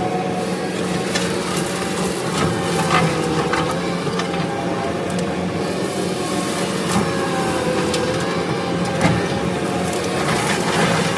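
Kubota SVL65 compact track loader running steadily, its brush cutter chewing through brush with repeated sharp cracks of breaking wood.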